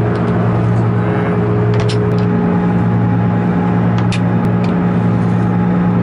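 Steady drone of a jet aircraft's cabin noise, a constant low hum. A few light clicks and knocks come about two seconds in and again around four seconds, as a wooden drawer with a brass pull is opened.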